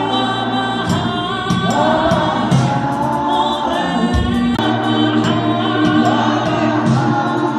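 Gospel choir singing through a PA, with a steady low accompaniment underneath and frequent short, sharp percussive hits.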